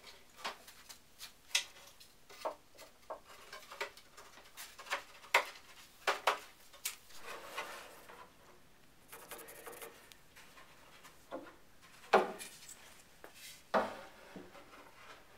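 Wooden cabinet parts being handled: wooden biscuits pushed into slots and face frame boards set on the cabinet frame, giving scattered light clicks and wood-on-wood knocks with some scraping. Two louder knocks come near the end.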